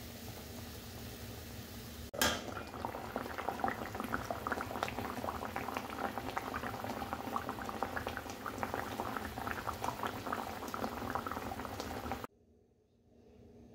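Mustard gravy with hilsa steaks simmering in a steel kadai, a dense patter of small bubbling pops. It starts suddenly about two seconds in and stops abruptly near the end; before it there is only a steady low hum.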